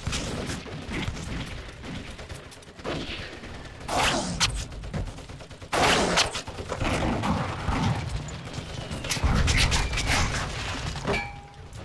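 Battle gunfire from a war film: rifles and machine guns firing in ragged volleys, with a deep, heavy blast about nine seconds in.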